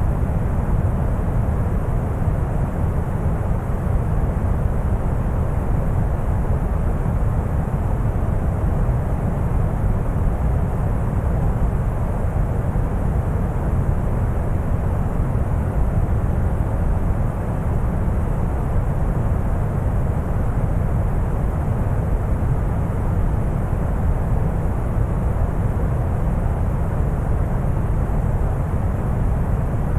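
Deep brown noise: a steady, unbroken hiss weighted heavily toward the bass, with only a thin high hiss above it.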